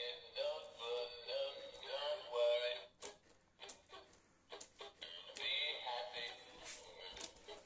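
Big Mouth Billy Bass animatronic fish singing its song through its small, tinny built-in speaker. The singing breaks off about three seconds in for a stretch of sharp clicks, then resumes for a couple of seconds before more clicks near the end.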